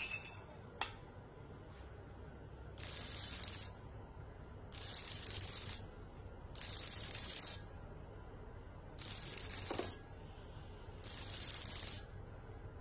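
Vibration alert of an electronic xóc đĩa result-reading device buzzing five times, each buzz just under a second long and about two seconds apart. Five pulses signal the result 'sấp đôi' (two counters up, two down). A faint knock comes about a second in.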